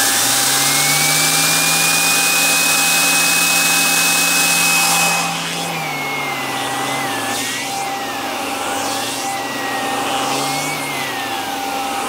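Kirby G5 upright vacuum running with its air-driven zip brush on the hose. The brush's whine rises as it spins up, then holds steady. About five seconds in it turns quieter and wavers up and down in pitch as the brush slows and speeds up while it is worked.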